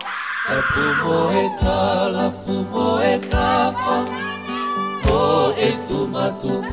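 Choral music: several voices singing held notes with vibrato over a steady low accompaniment, with a few sharp percussive hits.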